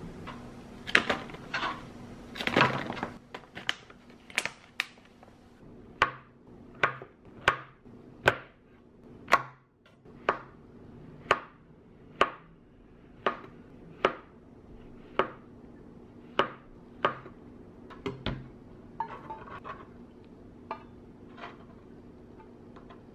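Chef's knife slicing shiitake mushrooms on a plastic cutting board: slow, even cuts, each a sharp knock of the blade on the board, about one a second. It opens with a few louder clatters of handling, and near the end softer clinks follow as the slices are swept into a metal tray.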